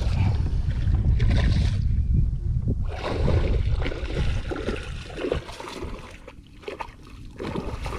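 Wind rumbling on the microphone, with water splashing and sloshing beside a fishing kayak where a hooked fish is thrashing at the surface. The sound grows quieter about halfway through.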